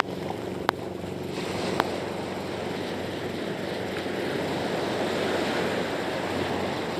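Small waves breaking and washing up a beach: a steady rushing noise that swells a little after the first second. Two sharp clicks come in the first two seconds.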